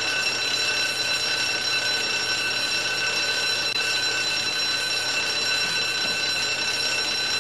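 A steady, high-pitched electronic whine with several overtones over a hiss, unbroken and unchanging in level.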